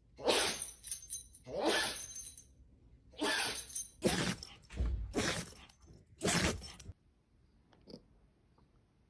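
A dog sneezing about six times in quick succession, each sneeze a short sharp blast of air, stopping about seven seconds in.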